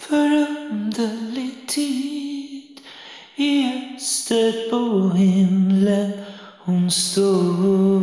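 A woman singing a slow melody alone, unaccompanied, in short held phrases with brief breaths between them.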